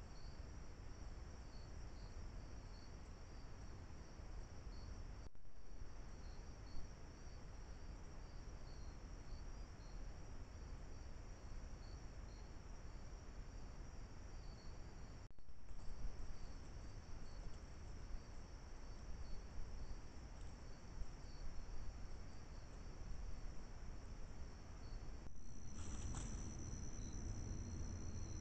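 Night insect chorus of crickets: a steady high trill with rapid pulsed chirps over a low background hiss. The chorus drops out for a moment three times, where recordings join.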